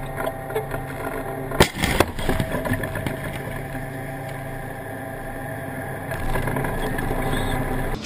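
Tank engine running steadily, with one sharp, loud blast about a second and a half in and a second crack just after it: the tank's main gun firing.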